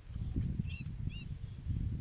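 Two short chirps from a small wild bird, about half a second apart, over a louder, uneven low rumble.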